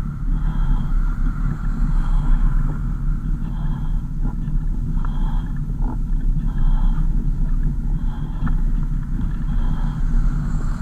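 A vehicle driving along with a steady low rumble of engine and road noise.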